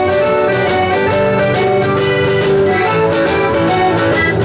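Live folk-rock band playing an instrumental passage: accordion carrying the tune over strummed guitars, with a snare drum keeping a steady beat.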